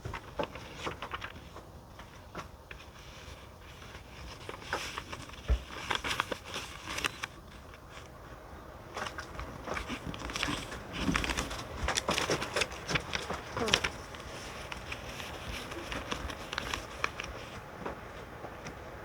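Sheet of paper being handled: irregular crinkling, crackling and tapping, busiest in the middle stretch, over a steady low hiss.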